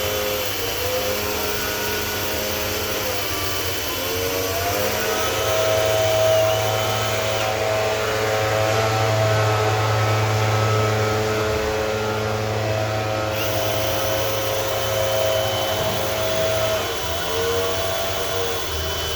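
Vacuum motor of dryer vent cleaning equipment running steadily, its whine dipping and rising a little in pitch as the load on it changes.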